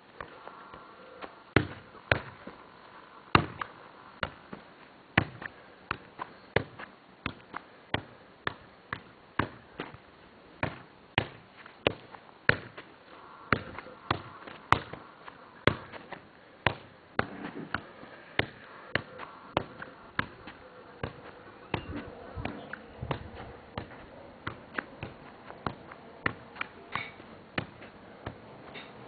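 A football being juggled: a long, uneven run of single dull knocks as it is kicked and headed, about one or two touches a second.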